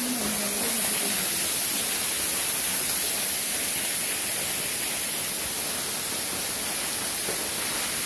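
Waterfall: water falling onto rocks close by, a steady rushing hiss.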